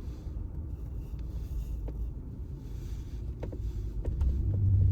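Jeep driving, with steady low road and engine rumble and a few faint clicks. A steady low hum comes in and gets louder near the end.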